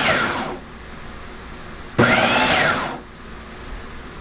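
Countertop food processor pulsed in short bursts, its blade chopping shredded cheddar and cream cheese together. One burst dies away about half a second in and another runs for about a second from two seconds in, the motor whine rising and then falling each time.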